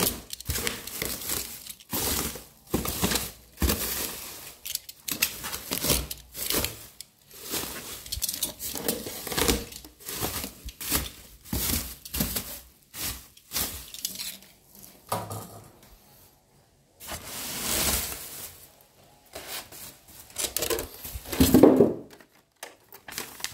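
Bubble wrap and plastic packaging crinkling, rustling and tearing in many short bursts as it is pulled off a machine in a cardboard box. A louder bump comes near the end.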